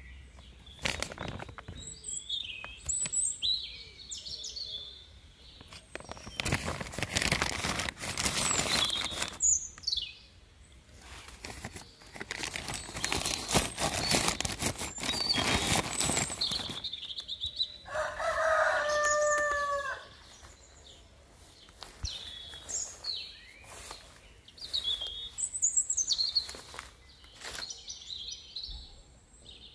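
Plastic sheeting rustling and crinkling as it is handled and lifted off a bed of succulents, in two long stretches, with small birds chirping throughout. About two-thirds in there is one brief held call from a larger bird.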